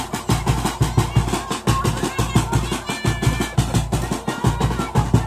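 Music with a fast, steady drum beat and a melody over it.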